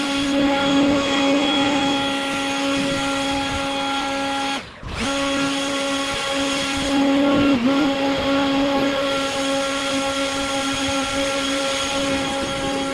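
Handheld blower motor running steadily at a high, even whine, dropping out briefly about five seconds in.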